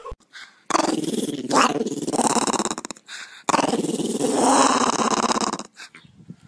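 Small white long-haired dog growling in two long, rough stretches of about two seconds each, with a short pause between them.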